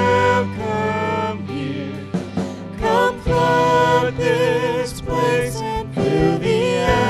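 Contemporary worship band playing a slow song: sung vocal lines with vibrato held over an electric bass guitar and backing instruments.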